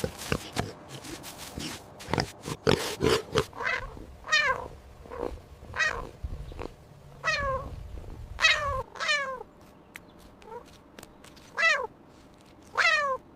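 An animal's recorded calls: a burst of rough, rapid clicking sounds, then a string of short cries, each sliding down in pitch, repeated about every second or so.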